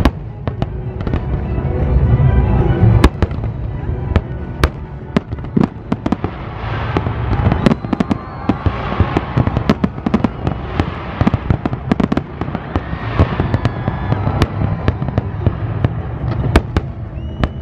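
Fireworks display: many sharp bangs of aerial shells bursting over a continuous low rumble, with denser crackle in the middle stretch.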